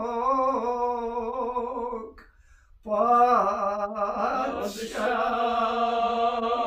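Unaccompanied male singing of a Kashmiri marsiya, the chanted Shia elegy. The voices hold long, slightly wavering notes, break off for a breath about two seconds in, then take up the line again and hold it.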